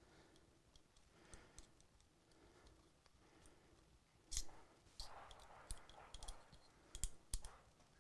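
Faint, sharp metal clicks and ticks from a small Allen wrench turning set screws into a Timney 667 drop-in AR trigger housing, a few louder clicks in the second half, with light handling rustle between.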